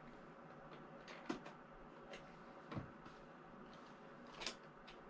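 Faint clicks and scrapes of a cardboard toy box being worked at by hand to free the packed model inside: three or four short sounds about a second apart, the loudest about a second in.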